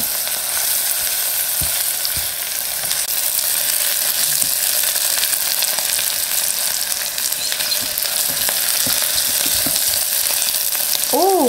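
Sliced onions sizzling steadily in olive oil in an electric pressure cooker's inner pot on sauté mode, with fine crackling, while a silicone spatula stirs them.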